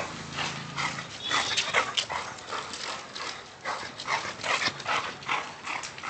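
Puppies at play yipping and whimpering in many short, irregular, high-pitched bursts.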